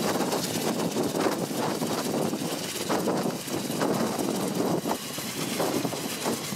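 Kaman K-MAX helicopter lifting off: its intermeshing twin rotors and turbine engine make a continuous rush of rotor noise that rises and falls slightly as it climbs away from the pad.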